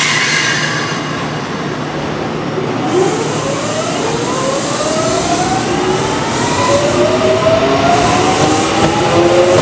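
Kintetsu 3200 series electric train pulling away. From about three seconds in, its early Mitsubishi GTO-VVVF inverter whines in several tones that climb steadily in pitch as it gathers speed, over the running noise of the train.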